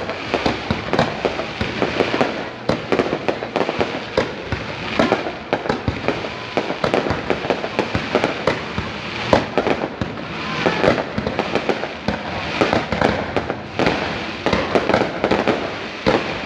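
Fireworks display: a dense, continuous run of bangs and crackling with no pause.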